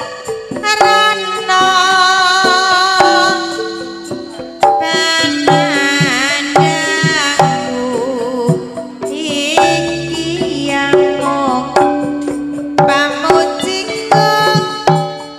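Live Javanese campursari music: kendang hand-drum patterns under a pitched melody, with a female singer's voice sliding and wavering in pitch through the middle.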